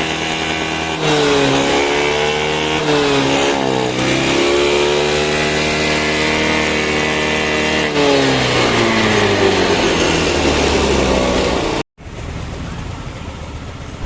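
Yamaha Fascino scooter's single-cylinder four-stroke engine running just after its carburettor was cleaned and refitted. It is blipped up and down on the throttle about a second in, held at raised revs, then falls back toward idle. It cuts out abruptly near the end and comes back quieter.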